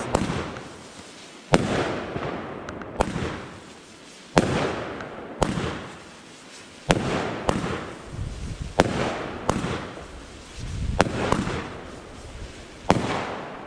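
Weco Stormy Flash 30 mm consumer firework battery firing shot after shot: about a dozen sharp reports, one every second or so, with a rushing hiss swelling and fading between them as the silver-whirl tails rise and the stars burst.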